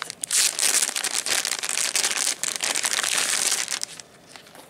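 Clear plastic bag holding headbands crinkling as it is handled and lifted out of a box, with tissue paper rustling; the crinkling stops about four seconds in.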